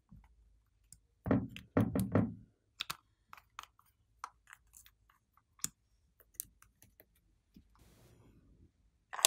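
Small plastic bottle caps clicking and tapping as bunny-head lids are twisted off glitter bottles. A cluster of loud clicks comes between about one and two and a half seconds in, followed by scattered lighter clicks.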